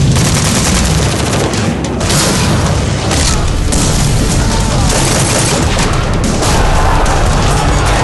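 Film battle sound effects: rapid automatic gunfire and booming explosions packed densely together with no break.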